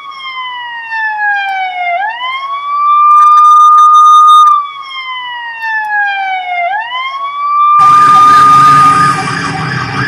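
Electronic siren wailing: a clean tone holds, falls slowly for about two seconds, then sweeps quickly back up, twice. About eight seconds in it switches to a fire engine's siren warbling fast over road traffic noise.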